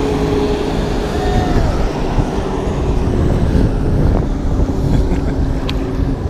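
Wind buffeting the microphone over the steady drone of a boat engine running nearby on the water.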